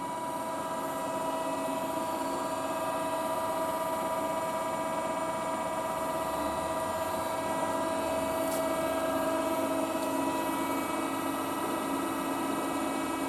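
Amada RGM2 hydraulic press brake running: a steady hum and whine made of several steady tones over a hiss, with a single faint click about eight and a half seconds in.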